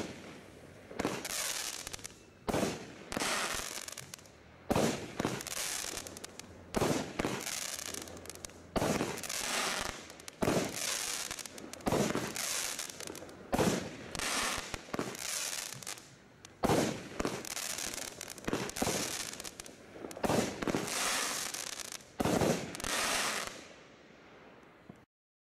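Consumer firework barrage firing shot after shot, about one or two a second. Each shot is a sharp bang followed by a hiss that dies away. The firing stops suddenly near the end.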